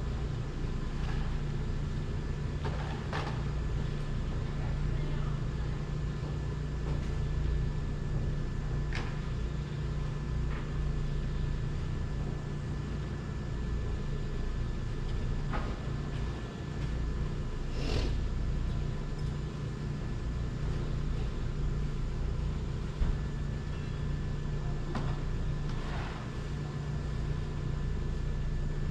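Steady low vehicle rumble with a constant hum, broken by a few brief faint clicks.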